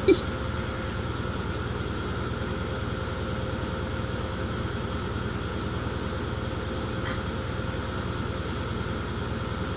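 Steady mechanical hum with a fast, even rattle from a device shaking a sand-filled plastic tub to simulate an earthquake.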